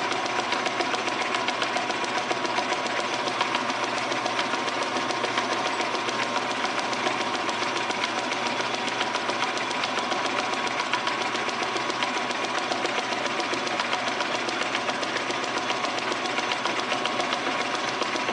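Metal lathe running steadily, its chuck spinning while the tool cuts the workpiece to clean it up, with a steady whine over the machine noise.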